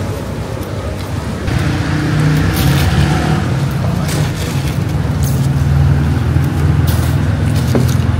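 City traffic, with a motor vehicle's engine running close to the microphone. It grows louder about a second and a half in, then holds steady.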